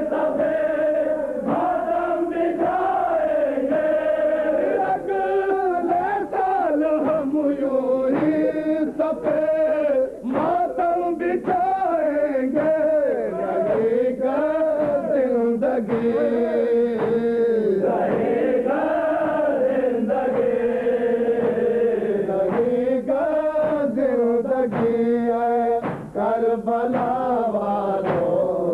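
Men's voices chanting a noha, an Urdu mourning lament, together in long rising and falling sung phrases, with sharp slaps scattered through it, typical of matam chest-beating.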